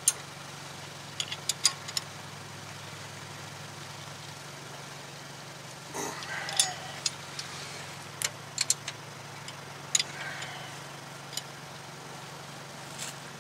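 Scattered sharp metallic clicks and clinks from a wrench and socket working the hub bolts as a Toyota Tacoma's front wheel hub is tightened down, some singly and some in quick little clusters. A steady low hum runs underneath.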